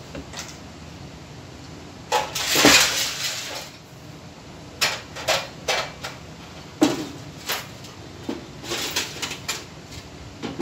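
Clattering and knocking of a PPR pipe welder being packed into its metal carrying case. About two seconds in there is a rattling scrape, then a string of sharp knocks and clicks as the welder and its heating dies are set in and the case is closed.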